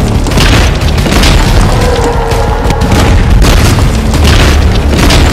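Loud soundtrack music layered with repeated heavy booms.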